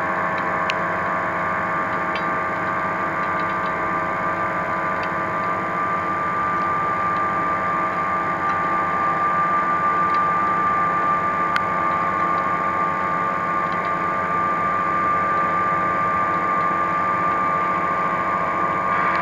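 Steady mechanical hum made of several held tones over a noise bed, with a faint click or two.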